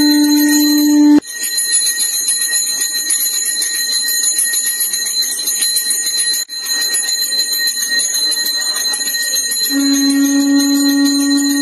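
Temple hand bell (puja bell) rung continuously during an abhishekam, a steady jangling ring. A held low pitched tone sounds with it for the first second, cuts off abruptly, and comes back near the end.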